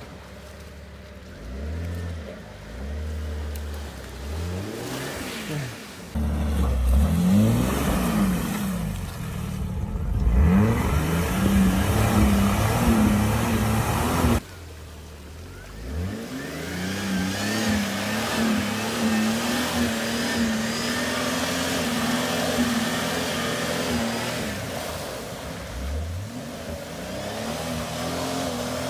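Jeep Grand Cherokee WJ engine revving again and again, its pitch rising and falling, as the bald-tyred Jeep tries to push through a deep mud hole. It holds one long high rev in the second half, over a hiss.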